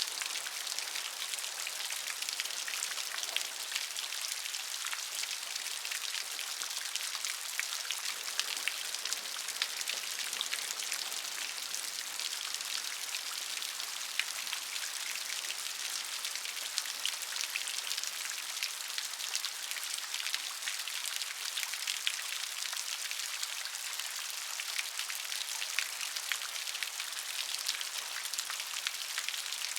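Steady rain: a constant hiss of falling drops, mostly high in pitch, dotted with many small, fine drop ticks.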